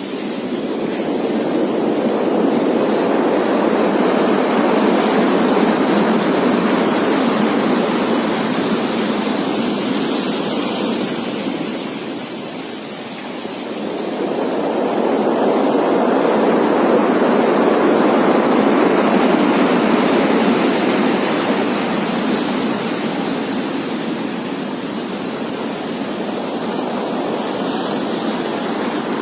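Heavy tropical rainstorm: a steady rush of rain and wind that swells, eases about halfway through, then swells again.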